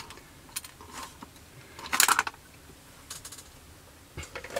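Side cutters snipping plastic model-kit parts off the sprue: a few sharp clicks and snaps, the loudest about two seconds in.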